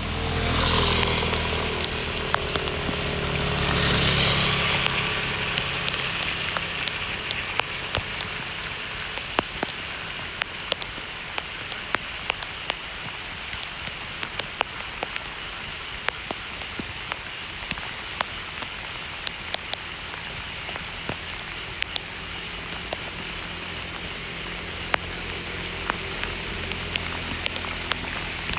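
Heavy rain falling: a steady hiss, with many sharp, separate drops smacking a surface close by. It is louder for the first few seconds, then settles to an even downpour.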